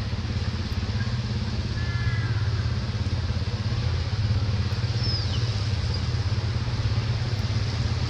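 Steady low rumble of an idling engine, with a few faint high chirps about two and five seconds in.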